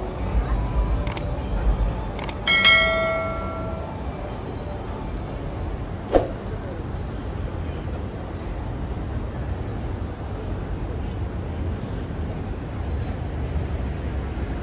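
A metal bell struck once, ringing and fading over about a second and a half, with a few short clicks over steady street background noise.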